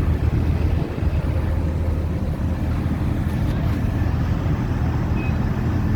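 Crane's engine running steadily with a low, even hum, just after being started.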